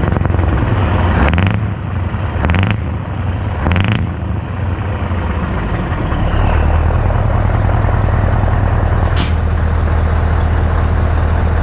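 Lorry diesel engine running through a straight-pipe exhaust, revved briefly three times in quick succession in the first four seconds, then running steadily. A short hiss about nine seconds in.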